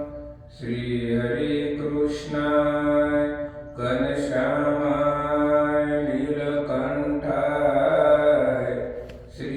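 Devotional chanting: long, held sung phrases over a steady low drone, with short breaks about half a second in, near four seconds and just before the end.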